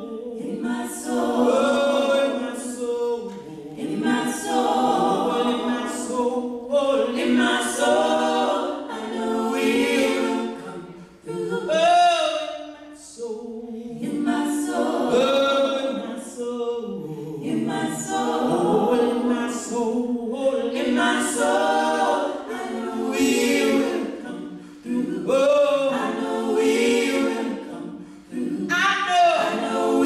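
Four women's voices singing a cappella in harmony, with no instruments, in phrases broken by short breaths.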